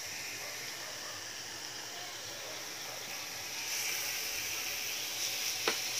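Thin slices of raw chicken and pork sizzling on the hot griddle of a Korean BBQ hot pot grill, a steady hiss that grows louder about two-thirds of the way through. A single sharp click near the end.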